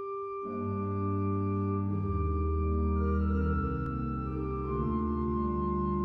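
Church organ playing slow held chords. A single sustained note is joined about half a second in by full chords and a deep bass, and the harmony shifts every second or two.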